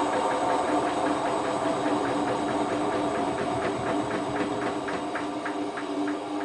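Hotpoint Ultima WT960 washing machine spinning a load of heavy mats: a steady motor hum with a rhythmic ticking from the turning drum. The ticking slows and the sound fades gradually, as the drum winds down.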